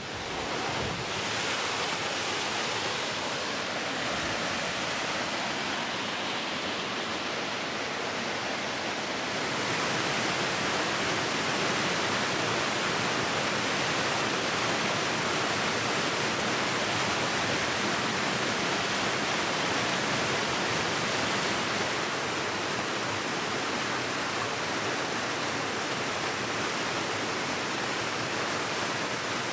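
Small waterfall cascading over rocks: a steady, even rush of white water that gets a little louder about ten seconds in.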